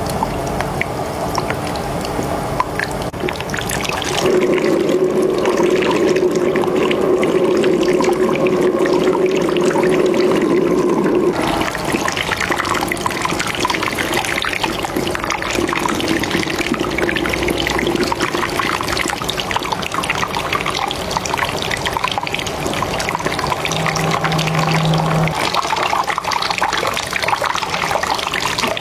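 Water running and trickling as hair is rinsed during a head-spa treatment, heavier and louder for about seven seconds from about four seconds in.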